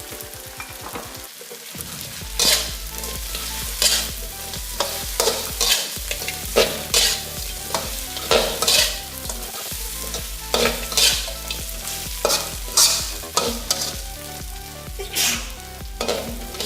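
Crispy pork belly stir-fried in hot oil with garlic and chillies, sizzling. From about two seconds in, a spatula scrapes and knocks against the pan roughly once a second.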